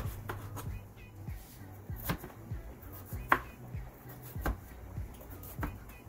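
Chef's knife chopping green bell pepper on a plastic cutting board: irregular knocks as the blade cuts through and strikes the board, with the sharpest knock a little past one third of the way in. Background music plays under it.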